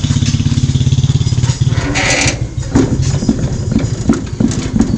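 Hand tractor's single-cylinder diesel engine running with a steady, fast chug. There is a short hiss about two seconds in. After that the chugging drops back under a run of irregular knocks.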